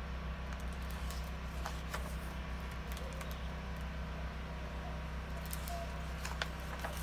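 Steady low hum with a scatter of faint clicks and paper handling as a hardcover picture book's page is turned.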